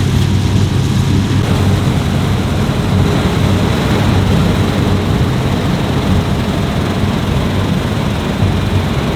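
Fendt Ideal 10T combine harvester running steadily while harvesting wheat: a deep, even engine hum under a dense mechanical whir.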